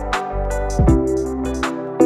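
Background music: a soft instrumental track with sustained notes over a steady beat, with a regular high tapping and a deep bass hit about every three-quarters of a second.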